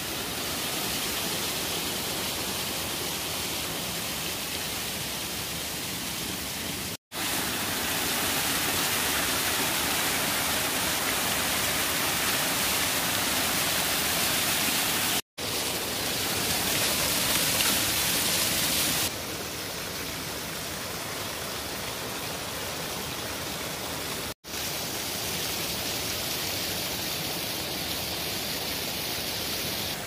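Steady rushing water, heard as four clips joined by abrupt cuts, each cut a split-second dropout to silence; the third clip is a little louder and brighter for its first few seconds.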